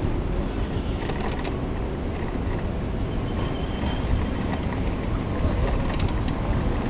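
Steady wind rumble on a bicycle-mounted camera's microphone while riding through city street traffic, with the traffic noise underneath and a few faint clicks.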